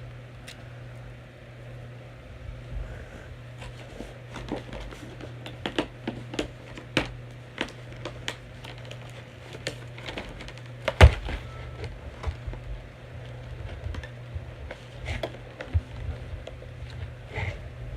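Irregular clicks and knocks of plastic and cardboard toy packaging being handled and opened, with one louder thump about eleven seconds in, over a steady low hum.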